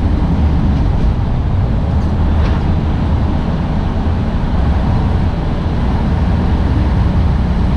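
Steady low engine and road rumble inside the cab of a semi-truck cruising on the interstate.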